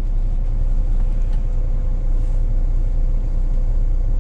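Scania S500 truck's 13-litre inline-six diesel running steadily at low speed, heard from inside the cab as a deep rumble. A faint steady whine sits above it.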